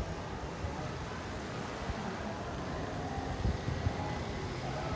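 Steady outdoor background noise: a low rumble and hiss of wind on the microphone, with a couple of slightly louder moments near the end.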